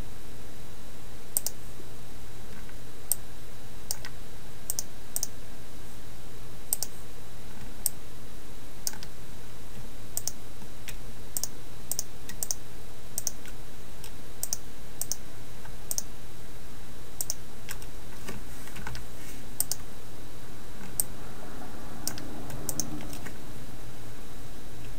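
Computer mouse and keyboard clicks, irregular and sharp, scattered over a steady low hum.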